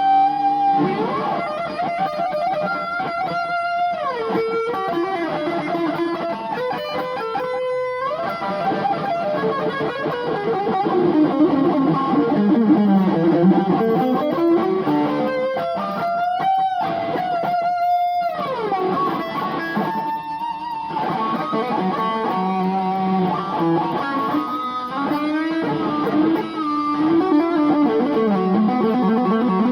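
Electric guitar playing a rock'n'roll solo, with melodic runs and sliding, bent notes. It was recorded on an old phone, so the top end is cut off.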